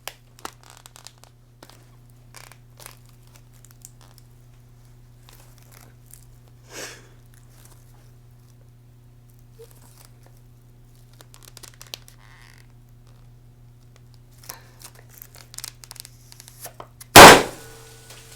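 Scattered faint rustling and handling clicks, then near the end a single loud pop as a confetti blaster is fired.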